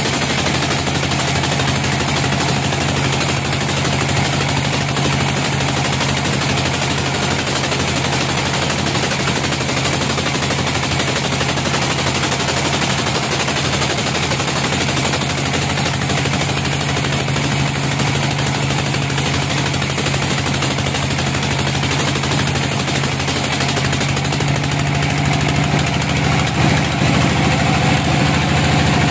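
Band sawmill running steadily with its blade cutting a slab from a log, a continuous hum with a rapid rattle. It grows a little louder near the end.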